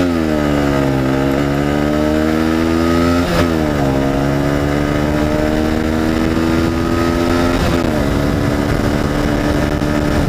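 Honda CBR125 motorcycle's single-cylinder four-stroke engine pulling through the gears while riding: its pitch drops sharply at gear changes right at the start, about three seconds in and about eight seconds in, and holds steady in between.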